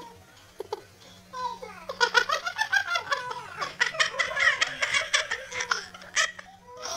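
Laughter and giggling in quick pulsing bursts, starting about a second and a half in and dying away shortly before the end.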